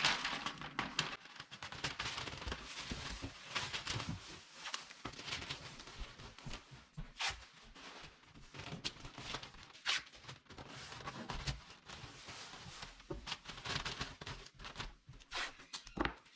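Brown kraft masking paper rustling and crinkling as it is handled, with blue painter's tape pulled off its roll and pressed down in short, irregular crackles and rips.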